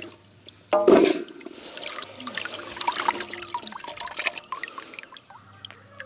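Hands washing Indian gooseberries (amla) in a steel basin of water. A splash comes just under a second in as a handful is scooped up, followed by water trickling and dripping from the lifted fruit back into the basin.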